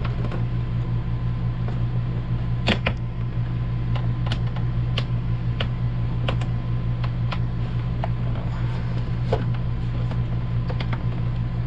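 Light plastic clicks and taps, about a dozen scattered irregularly, from handling a 12-volt ceiling fan and its wire while pressing it into place, over a steady low hum from a running appliance.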